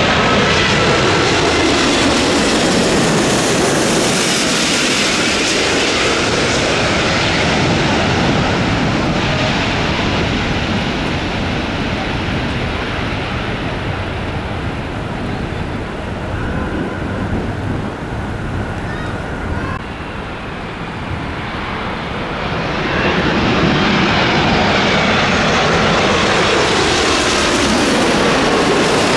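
Airliner jet engine noise as aircraft pass at the airport, loud at first and easing in the middle. It swells again about three quarters of the way in as another aircraft approaches, its pitch gliding.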